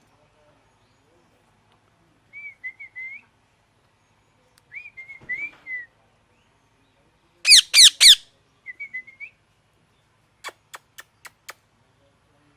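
Pet parrot making short soft warbling chirps, then three loud harsh screeches in quick succession about halfway through, followed by a run of five sharp clicks.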